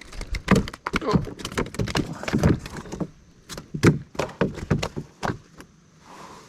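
Rapid, irregular knocks and thumps in two flurries, with a short lull about three seconds in, while a hooked bass is brought in to the canoe.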